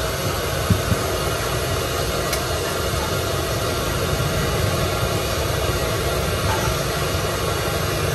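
A large wok of hot oil deep-frying cakwee (Chinese fried dough sticks), a steady sizzling hiss, with two short knocks about a second in.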